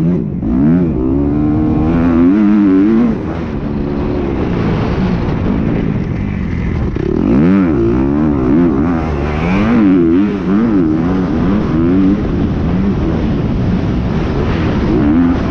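Kawasaki motocross bike engine, heard up close from the rider's helmet, its pitch rising and falling again and again as the throttle is opened and shut and the bike shifts through the gears on a dirt track.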